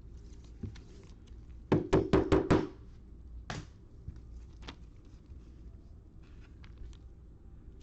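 About five quick knocks in a row about two seconds in, then two single knocks, over faint clicking and rustling of trading cards being handled on a table.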